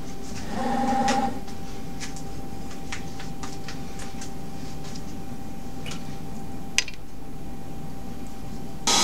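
Small CNC lathe standing with its spindle stopped, its drives humming steadily. About half a second in, a brief pitched whine of the axis motors as the tool turret traverses away from the part, then scattered light clicks and one sharp click near 7 s. Right at the end the sound jumps much louder as the running machine comes in.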